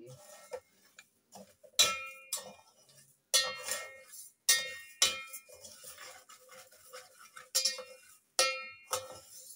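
Metal spatula scraping and knocking against the side of a thin aluminium pot as dry sugar is stirred over low heat to melt and brown it. The knocks come irregularly, about nine of them, each leaving a short metallic ring.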